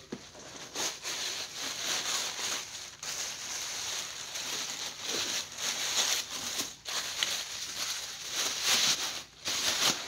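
White packing paper crinkling and rustling as it is pulled and crumpled out of a cardboard shipping box, with a few short breaks.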